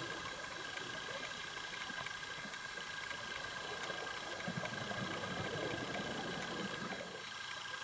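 Underwater ambience heard through a camera housing: a steady hiss with a constant high whine, and divers' exhaled regulator bubbles rumbling, strongest in the middle.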